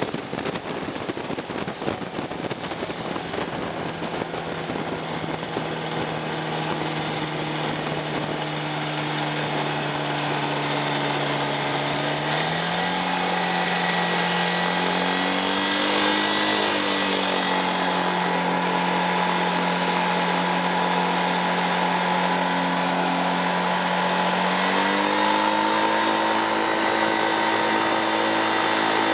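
Ultralight aircraft engine running at low power while the plane rolls out and taxis after landing. Over the first part there is rumbling wind and rolling noise. The engine's steady hum then rises in pitch a little under halfway through, swells and falls back shortly after, and rises again later on.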